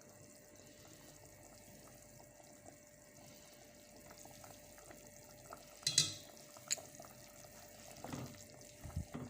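Quiet kitchen background with a faint steady hum, broken about six seconds in by a sharp ringing clink of a utensil, then a lighter click and a few soft knocks near the end, as seasonings are added to the soup pot.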